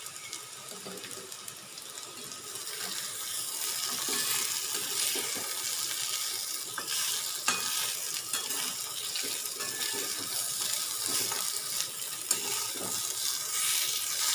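Chopped banana stem, chickpeas and fried lentil dumplings sizzling in hot oil in a wok while a spatula stirs and scrapes them against the pan. The sizzle grows louder a few seconds in and then holds steady.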